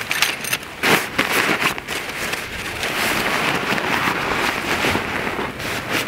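Tent fabric rustling and crinkling as it is folded and rolled up by hand, with a sharper crinkle about a second in.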